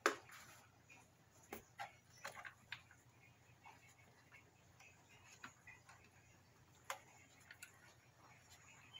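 Nearly quiet, with a few faint, scattered clicks and taps as a hand works the oil dipstick and filler cap on a CFMoto CForce 600 ATV engine.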